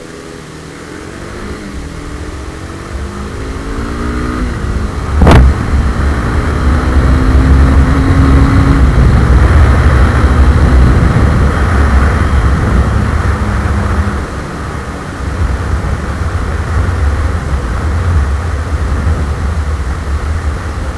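Honda CBR300R's single-cylinder engine accelerating, its pitch rising over the first few seconds, with one sharp knock about five seconds in. After that, a heavy low wind rumble on the microphone at riding speed covers the engine.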